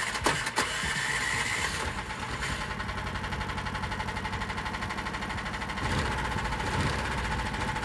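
The Rostin tracked motorsled's 15 hp Lifan engine just started and idling, with a steady, fast, even beat. It gets a little louder about six seconds in.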